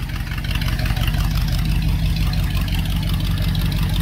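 1977 Dodge B200 van's 318 V8 running steadily at idle through its newly fitted performance exhaust.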